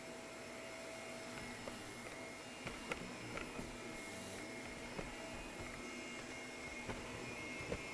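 Shark vacuum cleaner running steadily, its motor giving an even rushing hum with a few steady tones, with a few light clicks and knocks as it is worked over the floor.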